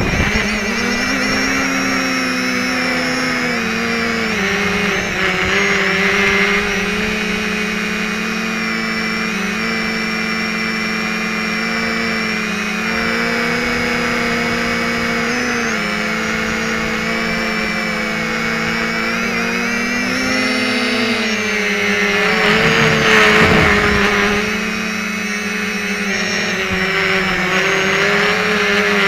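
Quadcopter's four SunnySky X2212 brushless motors and propellers whining steadily in flight, the pitch drifting slightly up and down as the throttle changes. The sound swells louder for a couple of seconds about two-thirds of the way through.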